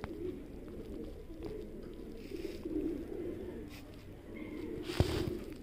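Domestic pigeons cooing, a low wavering coo that goes on and off. A short knock and a brief rustle come about five seconds in.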